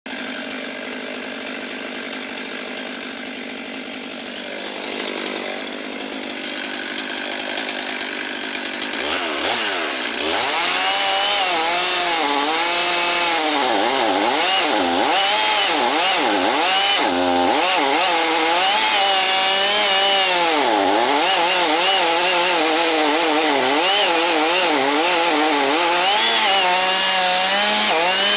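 Stihl MS 500i fuel-injected two-stroke chainsaw running, quieter for about the first nine seconds, then at full throttle cutting along the grain of the wood. The engine pitch dips and recovers over and over as the chain bites into the cut.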